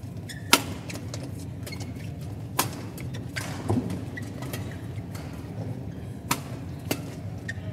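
Badminton rackets striking the shuttlecock during a doubles rally: several sharp cracks at uneven intervals, the loudest about half a second in and two close together near the end, over a steady low hum.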